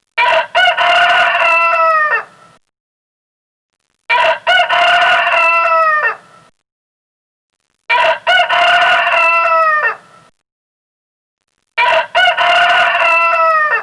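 A rooster crowing four times, about four seconds apart: each crow a short opening note followed by a long held call that drops in pitch at the end.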